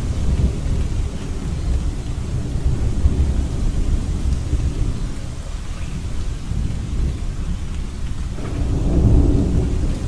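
Thunderstorm: steady rain hissing under a low, continuous rumble of thunder, which swells louder about eight and a half seconds in.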